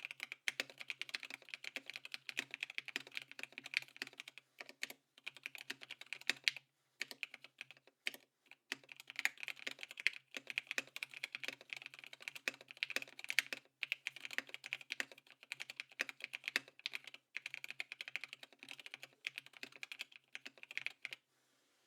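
Fast typing on a Keycult No.1 Rev.2 TKL mechanical keyboard with lubed Korbs switches on a polycarbonate half plate under XMI keycaps. Rapid key strokes run in bursts of a few seconds with brief pauses and stop just before the end.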